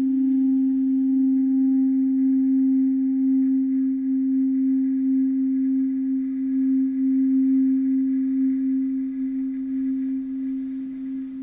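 A sustained low drone from the film's score: one steady pitch held throughout, with faint higher tones fading out about a second in and the drone softening a little near the end.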